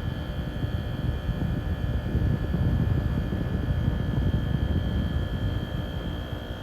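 1988 Carrier International 5200 BTU window air conditioner running steadily on low cool with its Toshiba rotary compressor and GE fan motor: a low, even rumble with a faint steady high tone over it.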